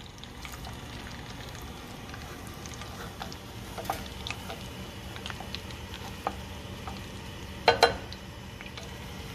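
Butter sizzling and crackling with many small pops as it foams in a stainless steel saucepan at the brown-butter (noisette) stage, stirred with a wooden spoon. A louder double click comes near the end.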